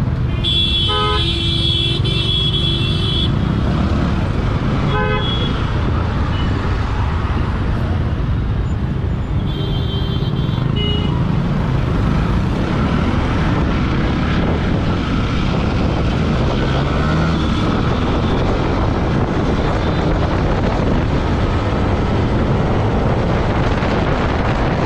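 Motorcycle engine running with wind rush on the microphone while riding through traffic, and vehicle horns honking: one long honk of nearly three seconds near the start, a short one about five seconds in, and a couple more around ten seconds in.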